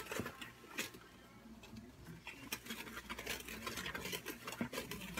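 Melted butter and sugar being stirred in a mixing bowl: irregular light scraping and clicking of the utensil against the bowl, with a quieter patch about a second in.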